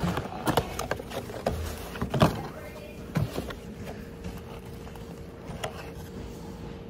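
Cardboard takeaway food boxes being handled and opened, with a run of knocks, taps and rustles as a wrap is lifted out. The handling noises thin out after about four seconds, and a faint steady hum comes in about two and a half seconds in.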